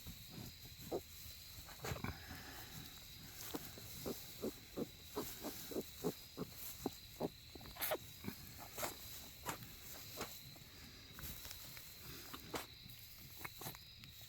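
Berkshire sow grunting in short grunts while farrowing, a steady run of about two a second through the middle that thins out near the end.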